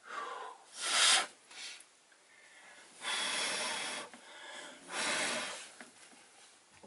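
A person blowing out breath in several airy puffs, the loudest about a second in and the longest near the middle, to cool a hot interior-light bulb.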